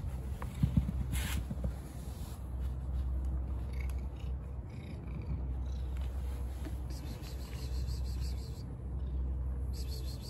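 Tabby-and-white cat purring steadily while being stroked, with a few brief thumps about a second in.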